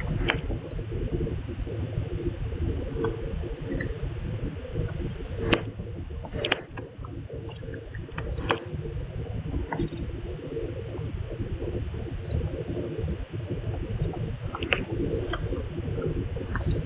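Steady low background rumble and hiss picked up by a CCTV camera's microphone, with scattered faint clicks and a few sharper taps.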